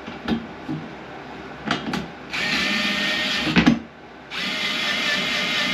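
A handheld power drill runs in two bursts, a steady whine that starts and stops abruptly, after a few light knocks of handling.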